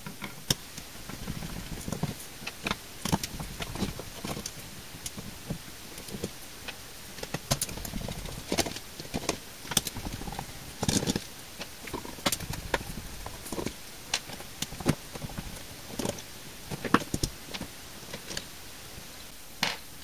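Irregular small clicks and taps of a long precision screwdriver working screws out of a plastic Bluetooth speaker's case, with hands shifting the case on the bench.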